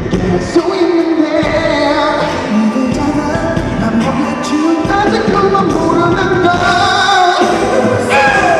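Live amplified pop music: a man singing into a headset microphone over a backing track with a steady beat.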